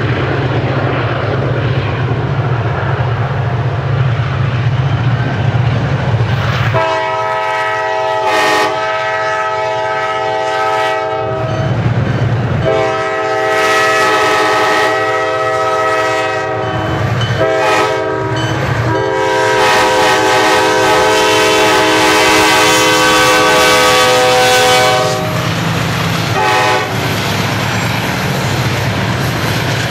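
Diesel freight locomotive's multi-chime air horn sounding the grade-crossing signal: two long blasts, a short one, then a long held blast, followed by a brief toot. The approaching train's low rumble runs underneath.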